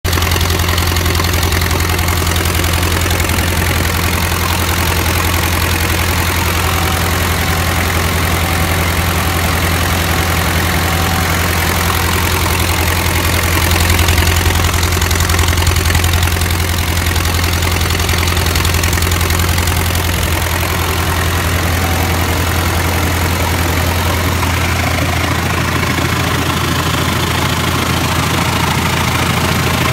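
Diesel engine running steadily at constant speed, driving a BDW 8 vacuum compressor on a cement tanker: a continuous low mechanical drone that swells slightly about halfway through.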